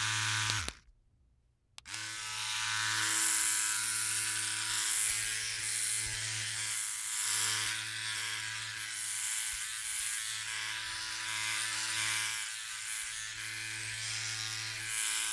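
Philips OneBlade electric shaver buzzing, a steady low hum with a bright hiss over it. It switches off under a second in, starts again about a second later and runs on with slight swells in level.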